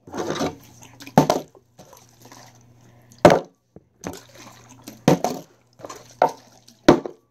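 Plastic water bottles being flipped and landing on a wooden table: about five sharp knocks of the bottles hitting the tabletop, with the water inside sloshing.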